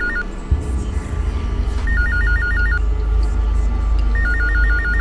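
Electronic telephone ringing: a fast two-tone warbling trill in short bursts about two seconds apart. Under it runs background music with a deep bass that comes in with a thump about half a second in.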